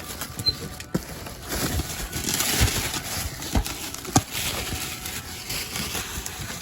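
Carded Hot Wheels cars being rummaged through in an opened cardboard shipping case: irregular hollow knocks of plastic blister packs and card against each other, with rustling in the middle.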